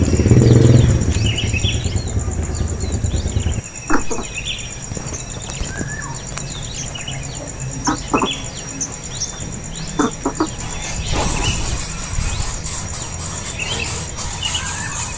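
Small birds chirping in short, repeated high calls, scattered through the whole stretch. A low rumble runs under the first three and a half seconds and then stops, and a few sharp knocks sound about four, eight and ten seconds in.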